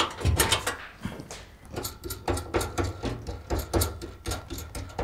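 A small wrench working the nut on a kitchen faucet's threaded mounting rod under a stainless steel sink, loosening it to free the faucet. It makes a quick run of metal clicks and scrapes, several a second, with dull knocks underneath.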